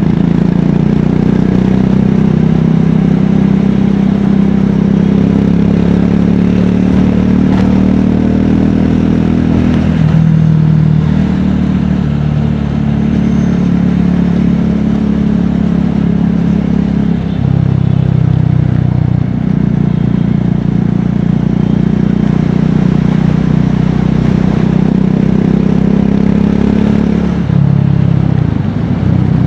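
Triumph Scrambler 400X's single-cylinder engine and exhaust running under way, the engine note dropping and rising several times as the rider eases off and opens the throttle.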